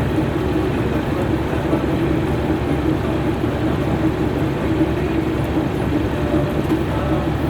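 An engine-driven harvesting machine running steadily at an even, unchanging pitch.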